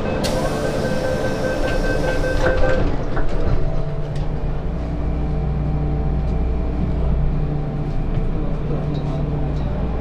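MTR M-train door-closing warning: rapid beeping while the doors slide shut, ending in a knock at about two and a half seconds. After that the train's traction motors hum steadily as it starts to pull out of the station.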